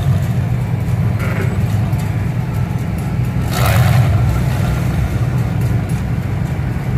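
Engine of a lifted pickup truck running steadily, a low rumble, with a brief louder surge about three and a half seconds in.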